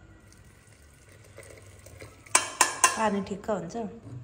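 Metal spoon and small steel cup stirring and clinking against an aluminium cooking pot of rice and meat. It is faint at first, then there are several sharp clinks from about two seconds in.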